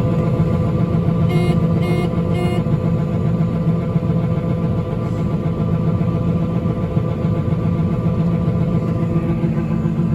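Heavy farm diesel engine running steadily at working speed, with three short beeps a little over a second in.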